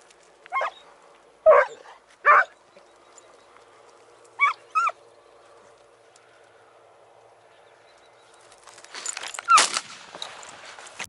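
Hunting hounds giving tongue, baying on a hare's trail: five short bays in the first five seconds, then a louder, longer burst of noise with a cry in it about nine seconds in.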